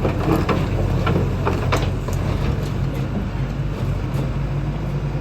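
Diesel engine of an XCMG XE85DA excavator running steadily, with a few sharp knocks in the first two seconds.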